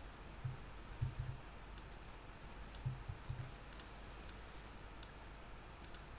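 Faint computer mouse clicks and keyboard key presses, a handful of scattered short clicks at irregular intervals, some with a soft low thump.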